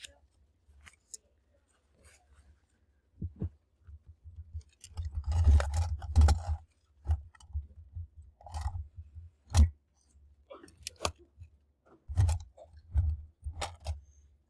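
Paper and a book being handled on a desk: rustling with scattered clicks and knocks, the longest rustle about five to six and a half seconds in.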